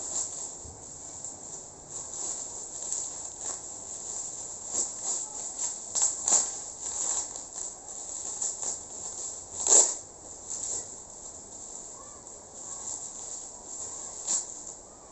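Insects chirring steadily in a high, continuous band, with irregular light clicks and knocks over it and one louder knock about ten seconds in.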